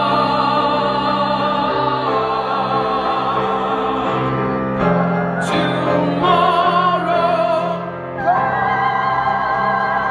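A male tenor singing long, held notes with vibrato into a microphone over piano accompaniment, moving to new notes twice, about five and eight seconds in.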